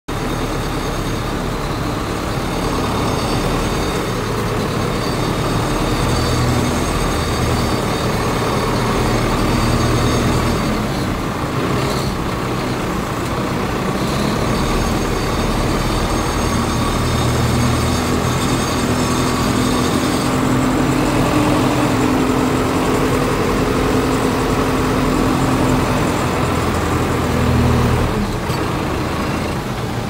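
MTZ (Belarus) tractor's diesel engine running steadily while it pushes snow with its front loader, the engine note rising and falling a little with the load. A thin high whine sits above it and cuts out for a moment about a third of the way in, then again about two-thirds through.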